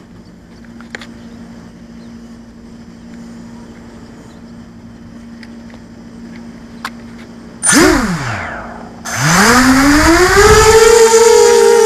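FPV quadcopter's motors and propellers. A short blip of motor whine at about eight seconds falls quickly in pitch, then a second later the motors spin up with a rising whine and stay loud, throttled up for takeoff.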